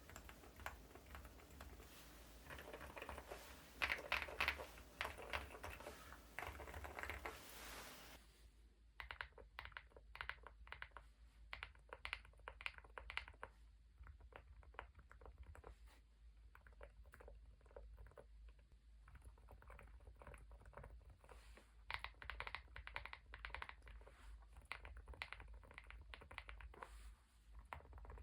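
Keystrokes on a mechanical keyboard fitted with Epomaker Nude Rosa silent switches, the sound of each press quiet and muffled. A fast flurry of typing comes first, then slower separate presses, then another quick run near the end.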